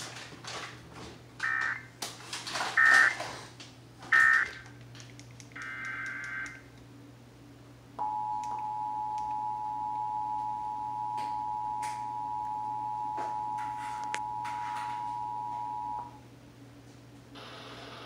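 Emergency Alert System test played through a television's speaker. Three short warbling data bursts of the SAME header come about a second and a half apart. A few seconds later the two-tone EAS attention signal sounds, two steady tones held together for about eight seconds, then stops abruptly.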